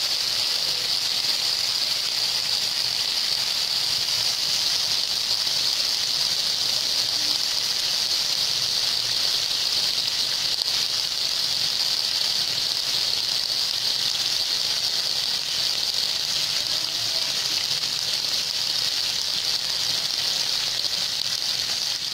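Thin slices of soy-marinated beef sizzling on a hot griddle pan, the marinade bubbling around them in a steady, unbroken hiss.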